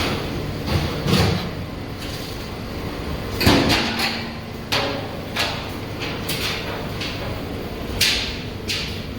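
An R160 New York City Subway train at a station: a run of about ten sharp metallic clanks and knocks at irregular intervals, the loudest about three and a half seconds in, over a steady low rumble.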